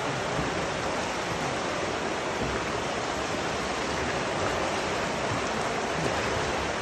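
Steady rushing noise with no distinct events, like running water.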